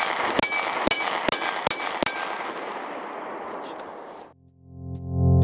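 A rapid string of about six gunshots, one every half second or so, several followed by the short ring of a steel target plate being hit as the plates of a plate rack are knocked down. Near the end the shooting noise cuts off and electronic music begins.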